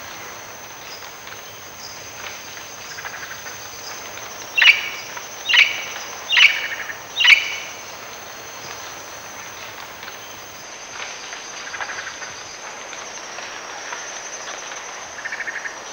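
Yellow-crowned amazon parrot giving four harsh squawks about a second apart, a few seconds in. Behind them runs a steady high insect drone, with a few faint distant bird trills.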